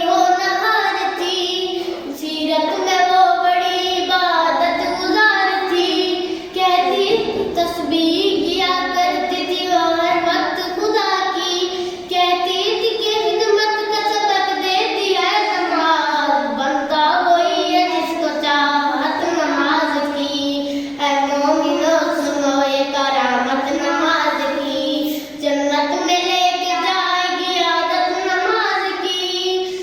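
A female voice singing an Urdu naat, an Islamic devotional song, in a continuous ornamented melody with short breaks between phrases.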